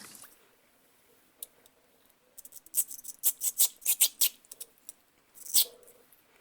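A quick run of about ten sharp clicks and taps, then a short scuff near the end: small carburetor parts being handled.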